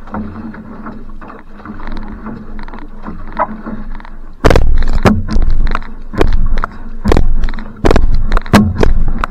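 Outrigger canoe being paddled hard: water rushing and the paddle working, then from about halfway a run of loud, rhythmic splashes, under a second apart, in time with the paddle strokes.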